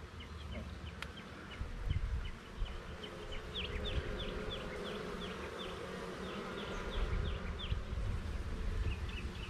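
Honeybees buzzing in a steady hum around an open hive, with a run of short, high falling chirps through the middle and low wind rumble on the microphone.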